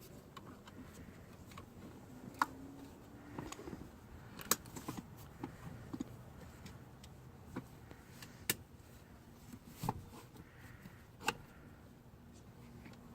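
Scattered light clicks and knocks, about eight of them at uneven intervals, over a faint steady background.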